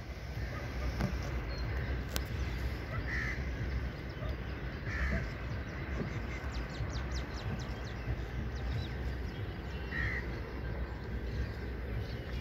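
A bird calling three times a few seconds apart, over a steady low rumble.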